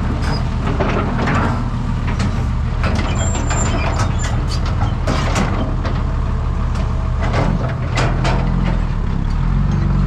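Excavator's diesel engine running steadily under load, with frequent metallic clanks and knocks from the working machine.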